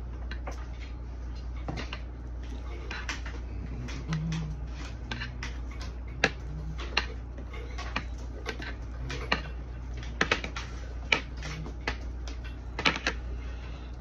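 Scattered light clicks and taps, irregular and a dozen or more in all, from hands handling a Cat 5 network cable and its plastic RJ45 plug, over a steady low hum.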